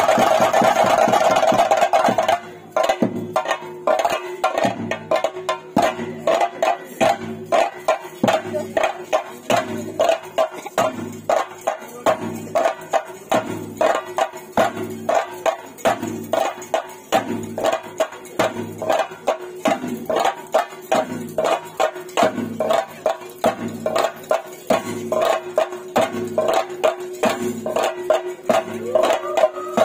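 Theyyam drumming on chenda drums: a dense, loud roll for the first couple of seconds, then steady strokes about two a second over a held tone.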